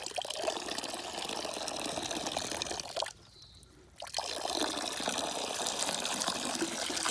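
Water poured from a pitcher into a dog's water dish, trickling and splashing steadily. It stops for about a second about three seconds in, then the pouring resumes.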